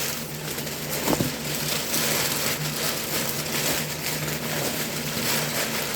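Crumpled packing paper rustling and crinkling as it is pulled out of a shipping box, with a short knock about a second in.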